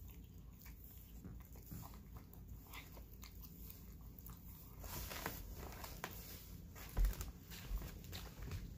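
A cat eating smooth chicken paté from a ceramic bowl: soft, wet licking and chewing clicks, busier in the second half. A dull thump about seven seconds in.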